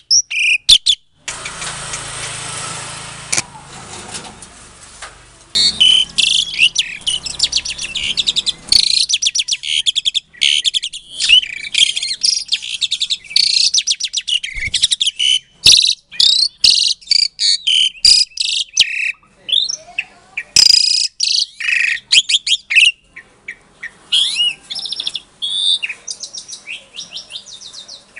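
Javan pied starling (jalak suren) calling: a fast, loud stream of chattering, whistled and rasping notes, thinning to scattered whistles near the end. A steady hiss fills the first few seconds before the calling starts.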